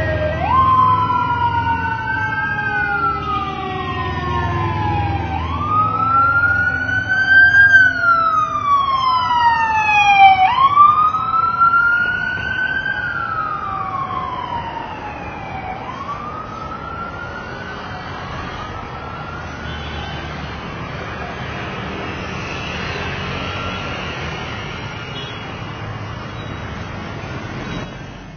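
Several police escort sirens wailing in overlapping rising-and-falling cycles of a couple of seconds each, loudest about seven to eleven seconds in and fading away by about sixteen seconds in. Passing road traffic runs underneath.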